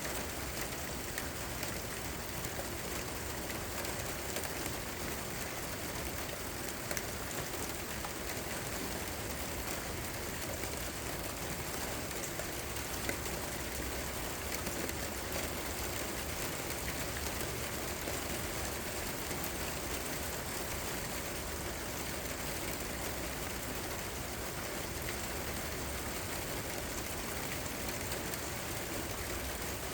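Steady rain falling, an even hiss with scattered louder drops.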